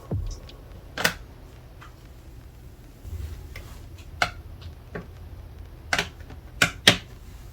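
Scattered sharp clicks and taps of small items and packing materials being handled, about five in all with two close together near the end, over a faint low hum.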